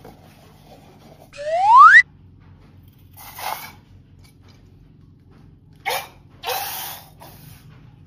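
A rising whistle sound effect, a smooth upward glide of under a second about a second in, the loudest sound here. Then a few short, noisy squishing bursts as a slime-filled balloon is cut open and the slime is squeezed out into a dish of liquid.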